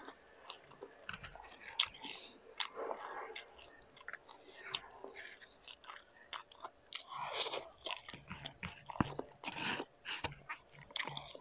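A person chewing and biting into food close to the microphone, with many irregular crunches and clicks.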